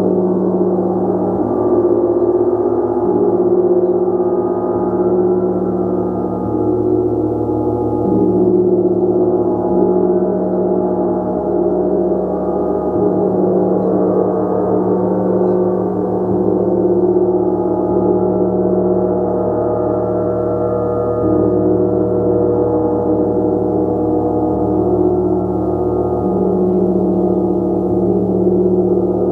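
A gong kept ringing as a continuous wash of many overlapping tones, steady in level and without pauses.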